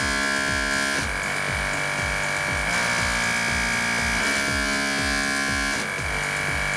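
Mini airbrush air compressor running with a steady high whine that shifts as a light press on its button cycles it through its speed settings, under background music with a steady beat.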